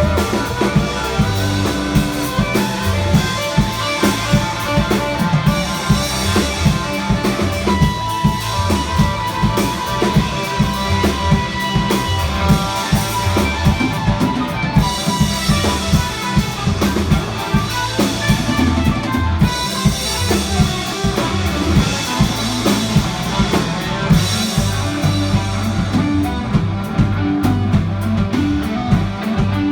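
Live band playing: a drum kit keeps a steady beat under guitar, with a held guitar note standing out about a third of the way in.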